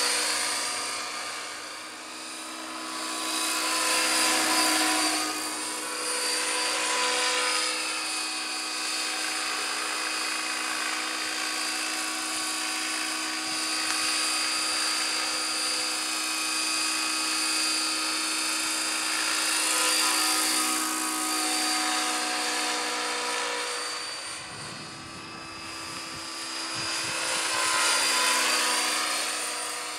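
Radio-controlled scale Bell LongRanger helicopter built on T-Rex 600 mechanics in flight: a steady high whine of motor and rotors with several held tones. It swells and fades several times as the helicopter passes close by, loudest about four seconds in, about twenty seconds in and near the end.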